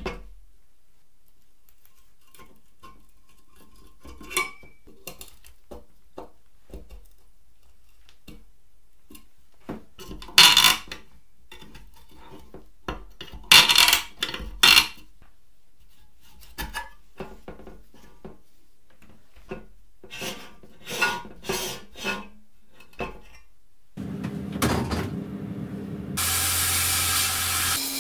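A screwdriver scraping and clicking against a rusty steel lens housing in short bursts as it pries the lens ring loose. About 24 s in, a steady machine hum starts, and about two seconds later a sandblasting gun begins a loud, steady hiss, blasting rust off the part.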